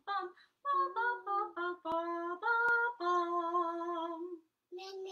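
A woman humming a song melody without words: a run of short notes, then a few longer held notes, stopping about four seconds in. Two faint clicks come partway through.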